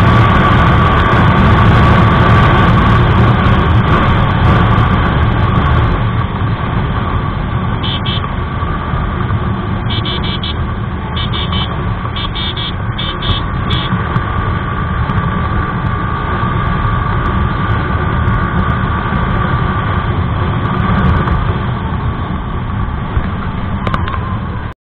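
Yamaha R15 V3's single-cylinder engine running at road speed, with wind noise on the microphone; the rush is louder for the first six seconds and then eases. Between about eight and fourteen seconds in, a vehicle horn honks six times in short beeps.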